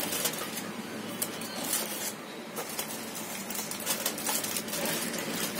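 Aluminium foil crinkling and crackling as it is peeled back off the top of a cooking pot, with many small sharp crackles throughout.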